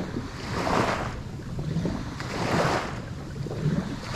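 Small waves slapping and washing against a jet ski's hull, swelling every second or two, with wind on the microphone.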